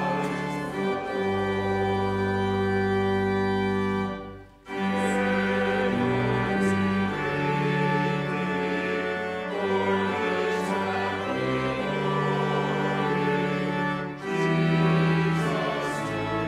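Church pipe organ playing sustained hymn chords that change every second or two, breaking off briefly about four seconds in between phrases.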